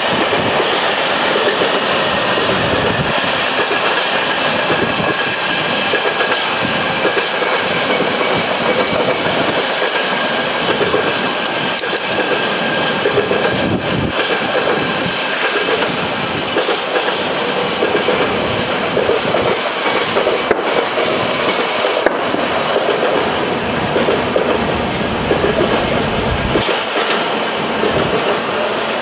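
A train passing close by at a steady speed, its wheels rumbling continuously on the rails, with a thin steady high-pitched whine over it.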